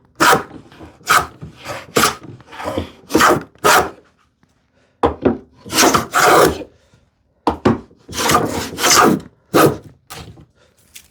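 Combination plane plowing a groove along a wooden rail: a series of rasping cutting strokes, short ones at first, then a pause about four seconds in, followed by longer strokes.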